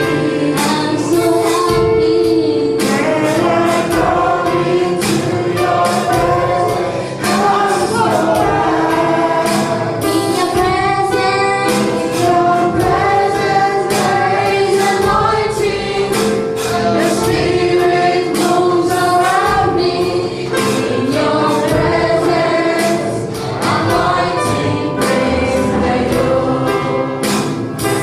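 Congregational gospel worship singing: a group of voices singing together over instrumental backing with a steady beat.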